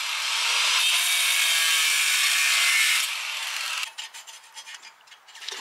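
Angle grinder grinding on the steel plate welded to an ATV's front frame: a loud, steady, high grinding hiss for about three seconds that drops lower and stops about four seconds in, followed by a few light clicks.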